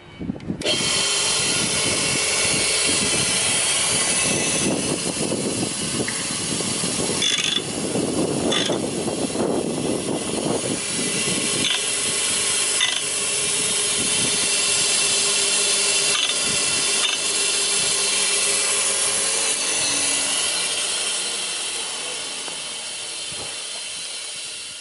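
Electric straight-knife sharpener starting abruptly about half a second in, its motor and cup grinding wheel running steadily while grinding a straight knife blade clamped in the holder, with rougher grinding and a few clicks in the middle. The sound eases off gradually near the end.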